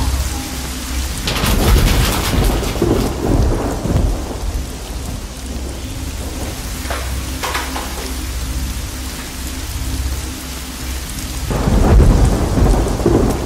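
Thunder rumbling over steady rain, swelling about a second and a half in and again near the end.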